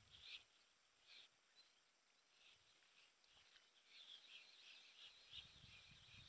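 Near silence with faint, scattered bird chirps, growing busier about four seconds in, and a faint low rumble coming in near the end.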